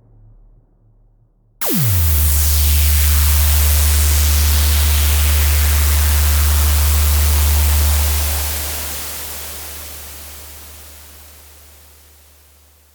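Horror-style cinematic impact sound effect. About a second and a half in, a sudden hit drops quickly in pitch into a deep low drone under a loud wash of hiss. It holds for several seconds, then slowly fades away.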